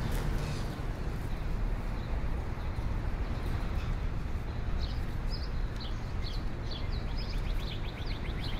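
Outdoor ambience: a steady low rumble with small, high bird chirps that begin about halfway through and come in quick runs near the end.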